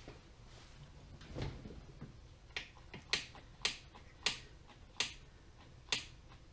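A Ducati ST2's clutch, a newly fitted Kbike slipper clutch, being worked by its lever: a dull knock, then about six sharp clicks spaced half a second to a second apart as the lever is pulled and let go.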